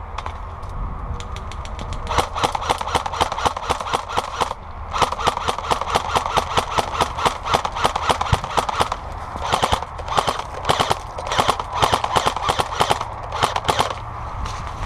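Airsoft guns firing on full auto: long strings of rapid sharp shots in bursts, starting about two seconds in and pausing briefly a few times, over a steady low rumble.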